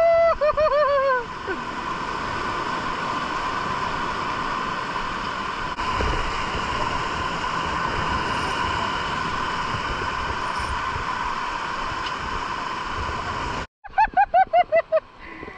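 Steady drone of a boat engine under way, with wind and water noise. Short repeated voice sounds come in the first second and again in a quick run just after a sudden break near the end.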